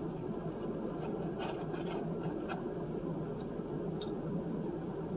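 Faint eating sounds: chewing with a few short mouth clicks over a steady low background hum.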